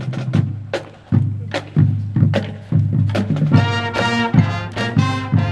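Marching band playing: sharp drum hits over a held low brass note, then the horn section comes in with loud brass chords about three and a half seconds in.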